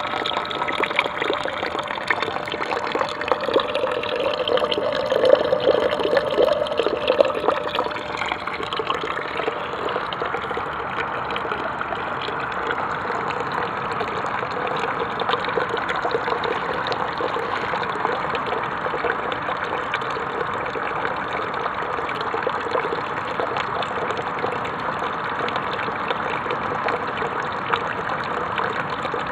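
Water pouring steadily from the end of a black plastic pipe into a plastic tub, the outflow of a compost-heap heating loop, a little louder about four to seven seconds in.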